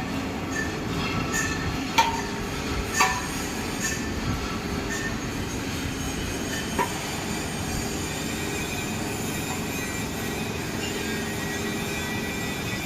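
CNC machine running: a steady mechanical drone with a few thin high tones over it, and sharp clicks at about 2, 3, 4 and 7 seconds in.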